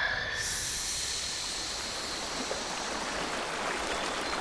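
Steady rush of flowing river water, an ambience sound effect that cuts in abruptly at the start and holds level.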